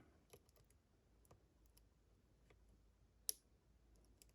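Faint, scattered clicks of a lock pick probing the pins of a pin-tumbler lock under tension, with one sharper click about three seconds in.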